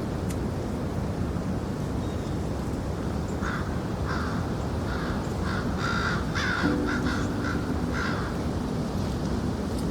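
A crow cawing: a string of about ten short, harsh caws lasting some five seconds, starting a third of the way in, over a steady low background hiss.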